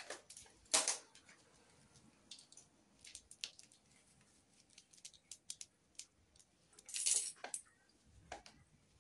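Small cat toys rattling, jingling and clicking on a wooden floor as a cat bats and paws at them. Short scattered clicks and jangles, with louder bursts about a second in and again about seven seconds in.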